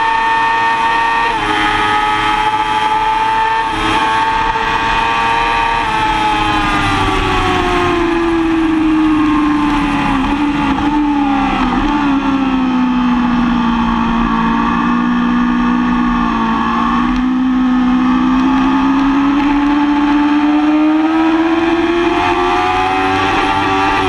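2005 Yamaha R6's 600 cc inline-four running hard on track. The engine note holds high at first, drops slowly from about six seconds in as the bike slows, stays low for a few seconds, then climbs again and falls off near the end.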